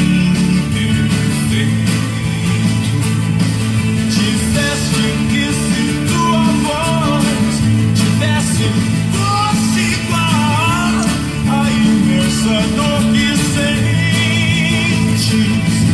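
A song playing: a singing voice, held notes with a wavering pitch, over a steady band backing with a prominent bass line.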